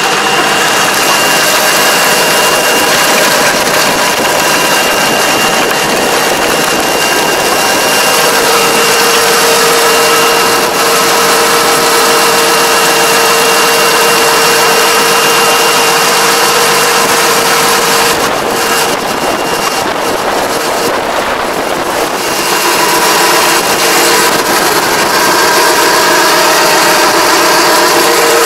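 Tractor engine running steadily while driving a Kobashi Gaia levee-plastering machine, whose rotating disc packs wet soil into a rice-paddy levee. A loud, steady mechanical drone with a thin whine, easing slightly for a few seconds past the middle.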